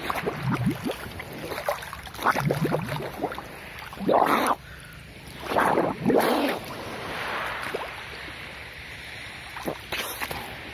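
Sea water splashing and sloshing close by as a person swims, in several bursts through the first seven seconds or so, with a steady wash of small waves between them.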